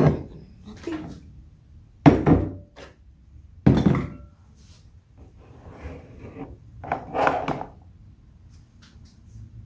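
Plastic and glass kitchenware handled on a countertop: two sharp knocks about two and three and a half seconds in as a glass pitcher is set down, then sliding and rubbing as a plastic container of juice is drawn out from under the juicer spout.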